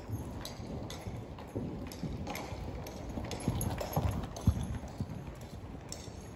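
Saddled horse's hoofbeats on soft dirt arena footing as it circles on the lunge line, loudest as it passes close by about four seconds in.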